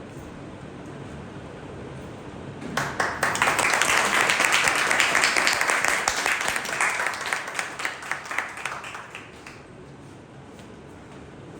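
Audience applauding: clapping starts about three seconds in, swells quickly and then thins out and dies away about two seconds before the end.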